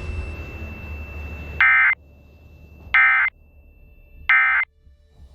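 Emergency Alert System end-of-message data tones: three short, loud, buzzy bursts of digital data, about a second and a half apart, marking the close of the warning. They sit over a low radio hiss with a faint steady high tone.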